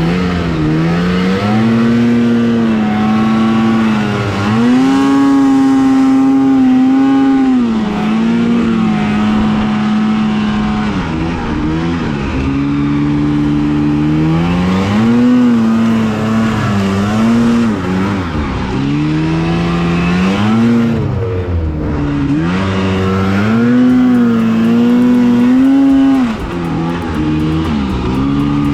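Two-stroke snowmobile engine running hard, its pitch rising and falling over and over as the throttle is opened and eased off.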